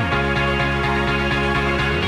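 Electronic background music with a steady, fast beat over sustained bass notes.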